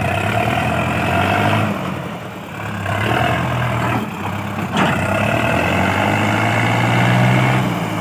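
Sonalika DI 750 III tractor's four-cylinder diesel engine labouring as it pulls a trolley. It dips about two seconds in and builds again but struggles to pick up revs, a lack of power whose cause the owners can't find. A sharp knock sounds about five seconds in.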